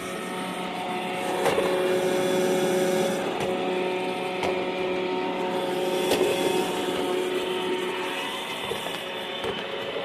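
iRobot Roomba i3 robot vacuum running, a steady whine from its vacuum motor and brushes, with a couple of light knocks.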